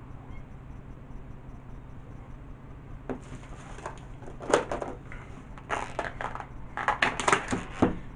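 A plastic takeaway food container being handled and food served from it onto a plate. After a few seconds of quiet room hum, irregular clicks, crinkles and scrapes begin about three seconds in and come loudest near the end.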